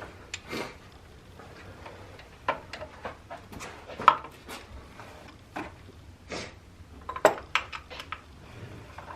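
Metal tools and parts clinking and knocking irregularly, with sharper knocks about four seconds in and about seven seconds in.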